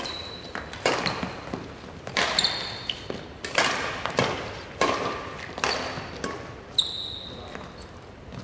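Badminton rackets striking a shuttlecock in a rally: about six sharp hits a little over a second apart, each echoing in a large hall. Sports shoes squeak briefly and high on the wooden court floor between the hits.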